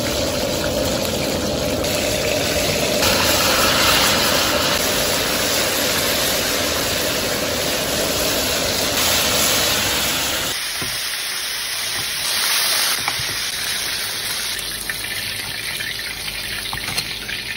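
Hot oil sizzling steadily in a wok, thinning out about ten seconds in.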